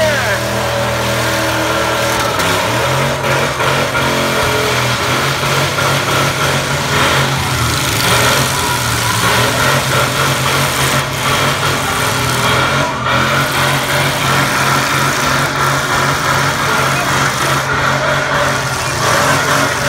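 Demolition derby truck engines running at speed in the arena. The engine pitch shifts over the first few seconds, then holds a steady drone.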